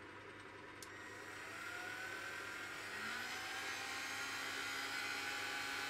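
Proxxon Micromot rotary-tool toolpost grinder and Myford ML7R lathe running, the small grinding wheel working the bore of a turning aluminium part: a steady motor whine and hum, with a higher whine rising in pitch about a second and a half in and a grinding hiss growing louder towards the end. The wheel is too fine for the job and the unlubricated aluminium is picking up onto it.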